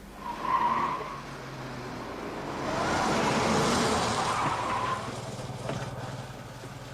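A car's tyres squeal briefly, then the car rushes in with a louder surge of noise and tyre screech that ends about five seconds in. The engine then runs steadily.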